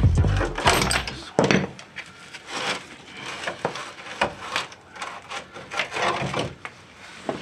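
Rusty lower control arm support bracket of a 2002 Chevrolet Trailblazer being worked out of its mounting, with irregular scraping and knocking of metal against metal.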